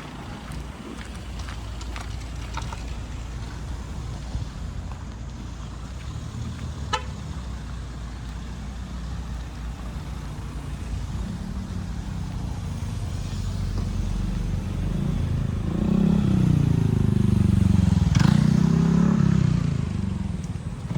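A motor vehicle passes close by over a steady low traffic rumble. Its engine grows louder from about halfway, is loudest near the end with its pitch rising and falling, then fades.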